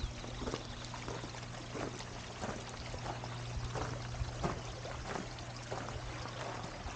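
Footsteps at a steady walking pace, about three steps every two seconds, over a steady low hum and a constant rushing noise.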